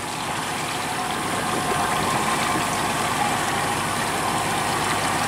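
Boat engine running steadily at idle, with a constant hum under wind and water noise.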